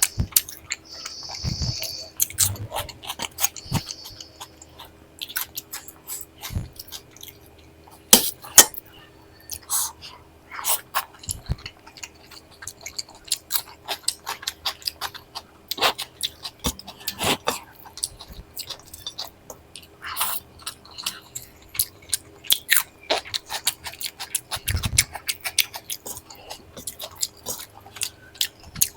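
Close-miked chewing and crunching of a person eating rice and dal with crisp fried snacks, an irregular run of wet chewing and sharp crackling bites.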